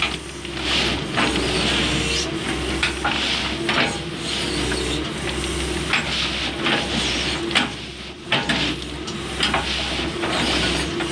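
Doosan DX140W wheeled excavator running while its hydraulics work an SRW14 railway attachment clamped on the rail: a steady engine hum under repeated surges of hiss and several sharp metallic clicks.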